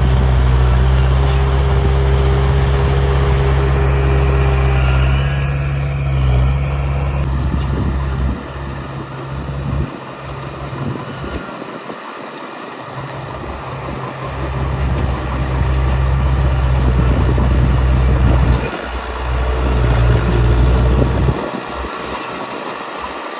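Heavy diesel engine of earthmoving machinery running hard and steady, easing off about ten seconds in and building up again a few seconds later, then easing once more near the end.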